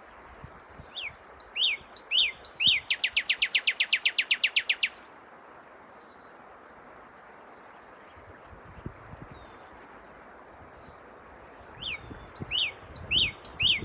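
Male northern cardinal singing: a few clear downslurred whistles, then a fast, even run of short falling notes for about two seconds. After a long pause it starts again with a few downslurred whistles near the end.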